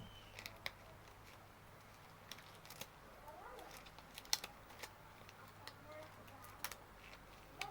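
Scattered light clicks and taps at irregular moments, handling noise from putting on disposable examination gloves, over a faint steady low hum.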